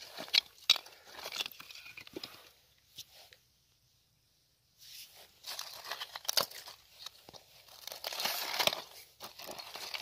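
Dry, cracked mud crust being broken and pulled apart by hand, plates of clay crunching and crumbling. It comes in two spells with a quiet gap of about two seconds between them.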